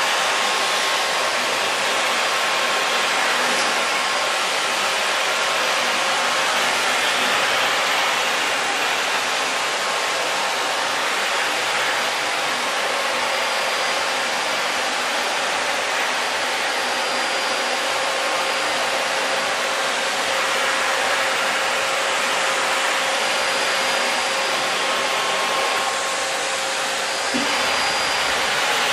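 Canister vacuum cleaner running steadily: a constant rush of air with a faint steady whine.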